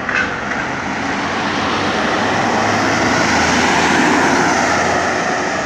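A modern jeepney minibus passing close by at speed: a broad rush of engine and tyre noise that swells to its loudest about four seconds in and then starts to fade.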